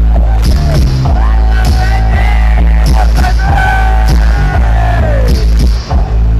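Synth-pop band playing live through a large PA: a heavy synth bass line and a steady electronic beat, with a singer's long held note that slides down near the end.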